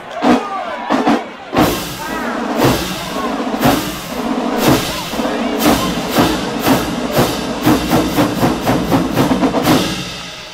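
Marching band playing. Drum hits come about once a second and get faster and faster after about six seconds, over a steady held note. Crowd shouts and cheers in the first second or so.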